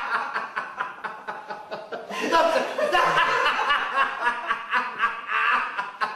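A man laughing hard and uncontrollably, in quick repeated bursts of laughter.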